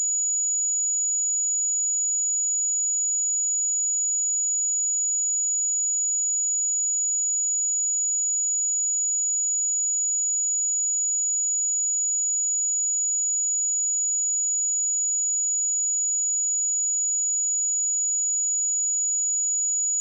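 A steady, continuous 6872 Hz sine-wave test tone: a single high-pitched pure tone, unchanging in pitch and level.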